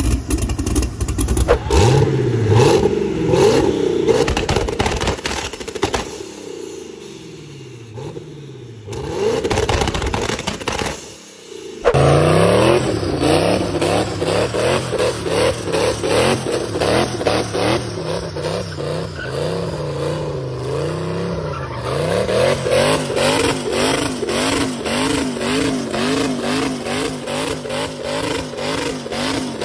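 Twin-turbocharged 408 stroker LS V8 in a BMW 335i revving hard, its pitch climbing and falling. After a cut about twelve seconds in, the engine is held at high revs with the pitch swinging up and down again and again while the car spins its rear tyres in a smoky burnout.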